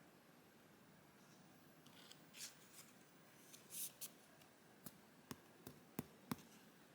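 Faint handling of Yu-Gi-Oh trading cards: a couple of soft swishes of cards sliding against each other, then a series of light clicks in the second half as cards are flicked through one by one.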